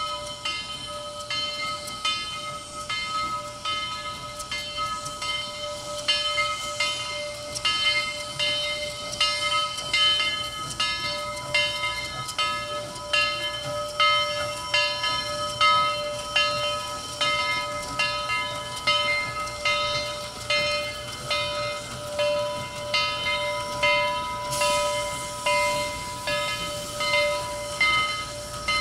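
Southern Railway 4501, a 2-8-2 Mikado steam locomotive, working past with a rhythmic exhaust chuff of about one beat a second. Under the beat runs a steady whine and a hiss of steam.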